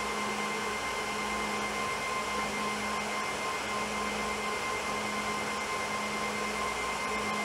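Steady whirring hiss with a constant low hum underneath, unchanging throughout: fan-like background noise in the room.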